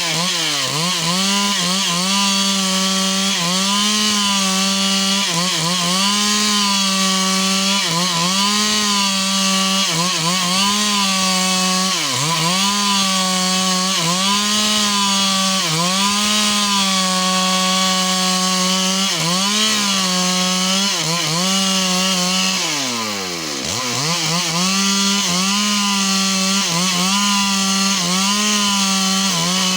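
Two-stroke chainsaw running at high revs while cutting wood, its engine pitch dipping briefly under load every couple of seconds. About two-thirds of the way through, the revs fall almost to idle and then climb back to full speed.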